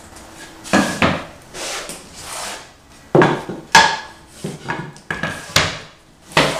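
Wood flooring planks knocking and sliding against each other as they are handled and set down on the floor: a series of sharp wooden knocks, with longer scraping rubs about two seconds in.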